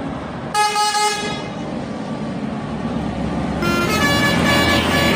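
Indonesian bus telolet horn: one horn blast about half a second in that fades away, then from about three and a half seconds in a multi-note melody of stepping pitches, over a bus engine's steady low rumble.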